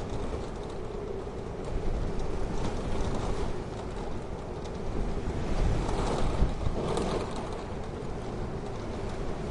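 Wind blowing steadily, swelling in a gust about six seconds in.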